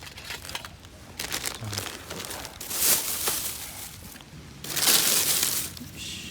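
Crinkling and rustling of something being handled, with scattered small clicks and two louder rustles about three and five seconds in.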